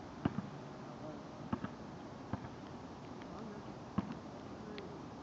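Basketball bouncing on a paved driveway: about six sharp, irregular knocks, some in quick pairs, over a steady background hiss.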